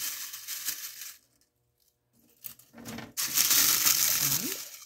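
Dry, brittle dehydrated spinach leaves crackling and crunching as they slide off a flexible plastic dehydrator sheet into a stainless steel canning funnel and are pushed down into a glass jar. It stops for about a second after a second in, and the loudest crunching comes in the second half.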